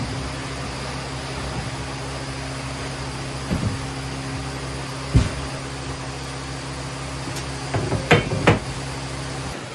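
Knocks and clatters as a large MDF board is lifted off a CNC table frame and metal slats are handled, the loudest knock about five seconds in and a quick run of knocks near the end, over a steady mechanical hum that stops near the end.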